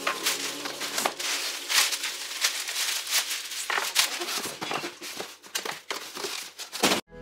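Plastic packaging wrap crinkling and rustling as it is handled and pulled out of a cardboard box, with a few light knocks.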